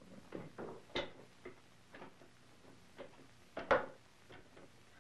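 Irregular clicks and knocks of a hand-worked rifling rod and cutter moving in the iron barrel and its wooden guide as it is backed up, the loudest knock a little before four seconds in. The cutter is set deeper by a paper shim, which makes it hard to pull through.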